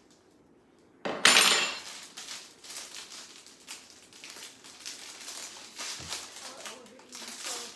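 Crinkling plastic wrapping and rustling dry pampas grass stems as a wrapped bundle is handled. A loud crackle comes about a second in, followed by a steady run of short crackles.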